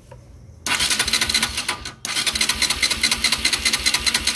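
Bajaj Pulsar NS200's electric starter cranking the single-cylinder engine with a compression gauge screwed into the spark-plug hole: a fast rhythmic chatter in two runs, with a brief break about two seconds in. This is a dry compression test, the gauge climbing to about 7.5 kg/cm², which is about right for the engine.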